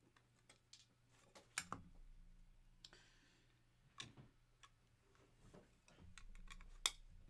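Faint scattered clicks and light taps of trading cards being handled at a desk, with one sharper click near the end.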